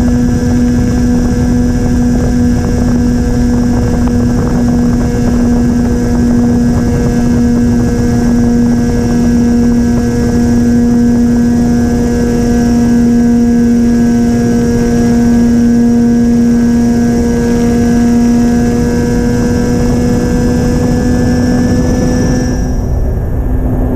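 Sonicmodell Binary's twin 2212 KV1100 brushless motors with APC 8x6 propellers, heard from on board in cruise flight. They give a steady, unchanging drone over a rush of wind on the microphone.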